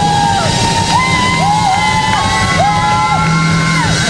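Live rock band playing a groove on drums, bass and electric guitar, with long held guitar notes that bend up into pitch and fall away at the end, and the audience cheering and whooping.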